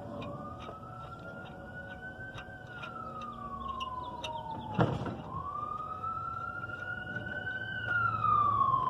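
Emergency vehicle siren on a slow wail, rising and falling in pitch about twice and growing louder near the end. A single sharp knock about five seconds in, with light clicks scattered throughout.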